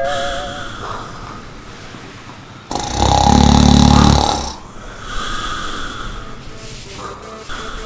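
A man snoring in his sleep: quieter breaths, then one long, loud snore about three seconds in, followed by a softer breath.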